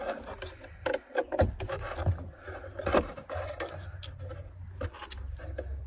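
A screwdriver working a metal hose clamp on a fuel tank fitting: scattered sharp clicks and scrapes of metal on metal, with a steady low rumble underneath.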